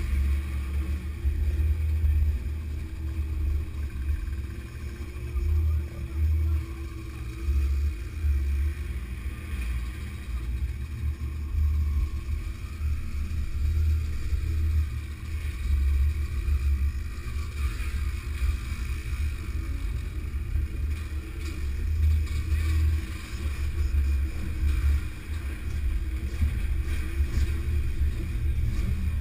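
Motorcycles riding slowly in a group, engine noise mixed with an uneven low rumble of wind on the microphone of a camera moving with them.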